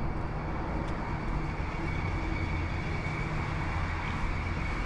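Steady low engine rumble with a constant hum, holding an even level throughout.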